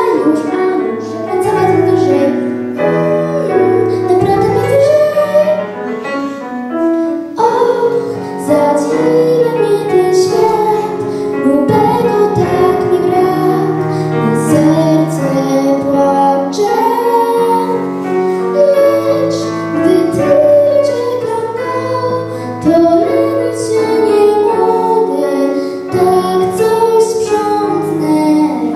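A young girl singing a song into a handheld microphone, her voice amplified, over instrumental accompaniment with steady low notes.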